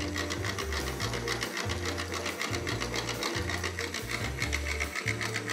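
Small battery-powered electric motor spinning the fan of a 3D-printed turbofan jet engine model: a steady buzzing whir with a fast rattle from the printed parts.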